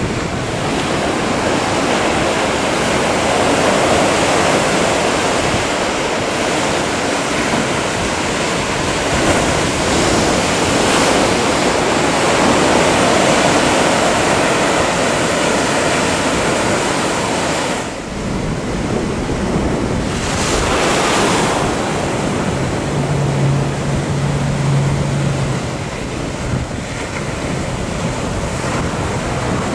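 Ocean waves breaking and surf rushing over rough water, with wind buffeting the microphone. In the last few seconds a motorboat's engine hum rises above the surf.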